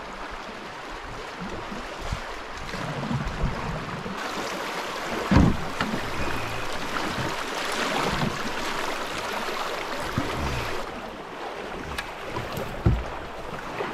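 Rushing river water around a paddled canoe in a swift, a steady wash of noise, with a few low thumps from the paddle and boat; the loudest thump comes about five seconds in.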